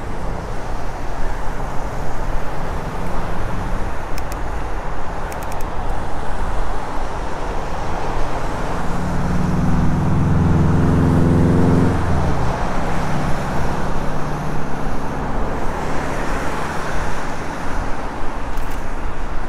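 Steady rushing road noise from riding an electric mountain bike. A motor vehicle passes close by from about nine to twelve seconds in; its engine note is the loudest sound and drops in pitch as it goes past.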